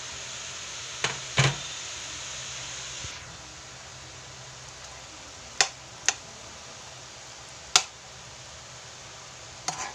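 Chicken adobo with potato chunks sizzling in a pan, a steady hiss that eases about three seconds in. About six sharp knocks of a metal utensil against the pan are spread through it.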